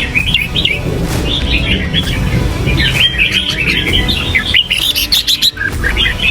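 Red-whiskered bulbul singing in repeated bursts of quick, warbling chirps.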